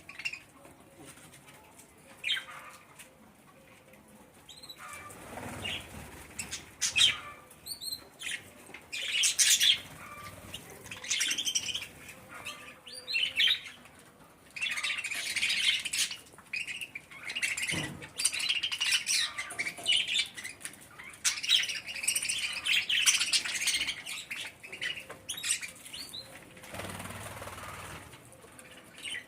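Pet budgerigars chirping and chattering in short calls, sparse at first and busy through the second half, with a few bursts of wing flapping.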